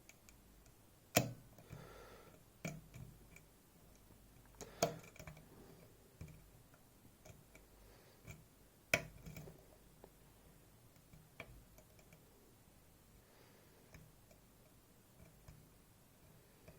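Lock pick working the pins of a Goal Z 7-pin cylinder: faint, irregular metallic clicks and taps, a few sharper ones among them, as the pins are lifted and set.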